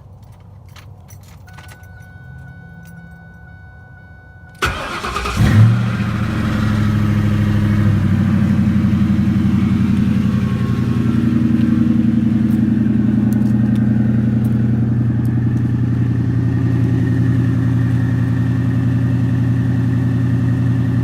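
Ford Mustang GT's 4.6L V8 cranking and catching about four and a half seconds in, then settling into a steady idle. Before it starts, a steady high tone sounds for a few seconds.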